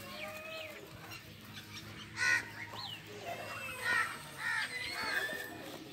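Crows cawing several times, the loudest caw about two seconds in and more near the end, with other birds chirping in the background.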